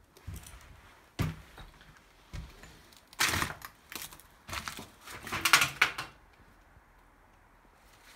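Footsteps over debris on old wooden floorboards: a sharp knock about a second in, then scuffing, crunching steps, loudest about two-thirds of the way through.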